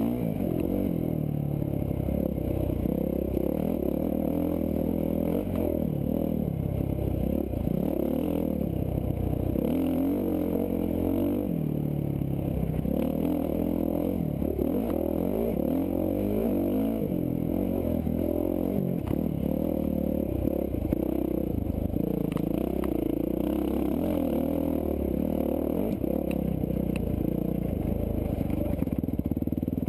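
Dirt bike engine running under load, its pitch rising and falling again and again as the throttle is opened and closed on a rough trail.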